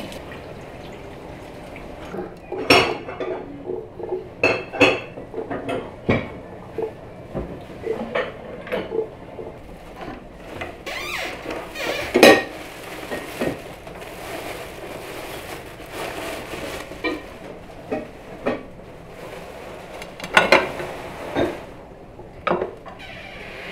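Irregular clinks and knocks of dishes and cutlery, including a fork knocking against a large glass jar while pickled tomatoes are lifted out onto a plate.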